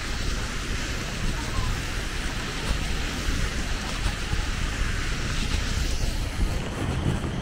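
Wind buffeting the microphone as a constant fluttering low rumble, over a steady rushing hiss of seaside ambience.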